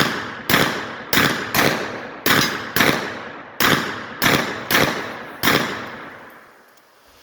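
About ten gunshots in quick succession, roughly two a second, each followed by a long echoing tail. The last shot comes about five and a half seconds in, and its echo dies away.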